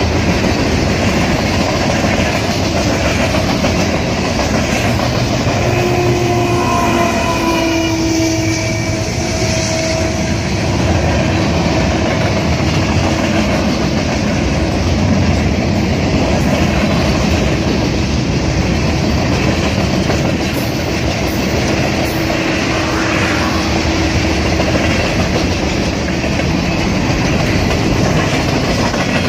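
Freight train of boxcars and covered hopper cars rolling steadily past, a continuous rumble and clatter of wheels on the rails.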